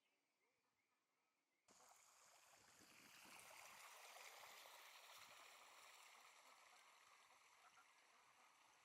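Faint rushing of flowing water that cuts in abruptly about two seconds in, swells, then slowly eases off.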